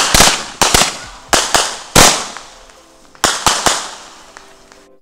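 Consumer aerial fireworks bursting overhead: about a dozen sharp bangs in three quick volleys, each bang dying away fast.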